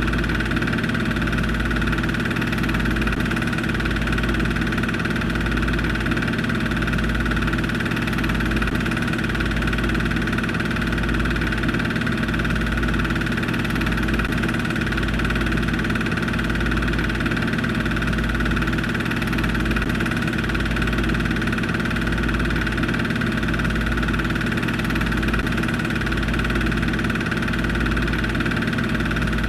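Film projector running: a steady motor hum with a low throb that pulses slowly and evenly.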